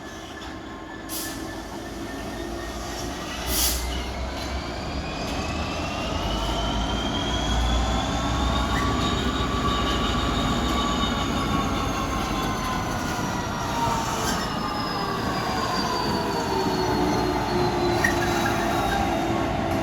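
Freight train of IOA ballast wagons rolling past over the rails, with long squealing wheel tones that rise in pitch, hold and then fall again. A few sharp clicks break through the rumble.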